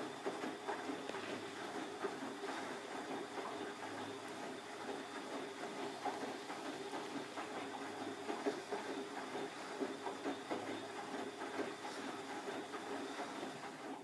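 Bosch WFF2000 front-loading washing machine in its main wash: the drum motor hums steadily while the wet load tumbles and water sloshes and splashes in the drum.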